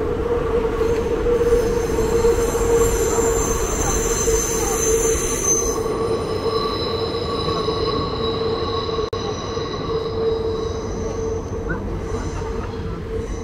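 A train passing with its wheels squealing in several high, shrill tones that shift lower about halfway through, over a steady hum.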